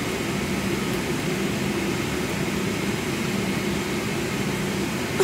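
Steady drone of an airliner cabin's air conditioning while the aircraft sits on the ground, an even rushing with a low, constant hum.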